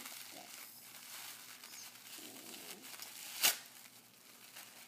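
Thin plastic packaging bag crinkling as it is handled and pulled apart by hand, with one sudden loud crackle about three and a half seconds in.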